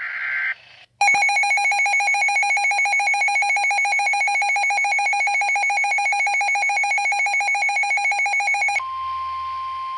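Emergency alert attention tone: a loud, rapidly pulsing electronic alarm tone that starts about a second in, after a short burst of data-like noise, and cuts off near the end, leaving a fainter steady tone.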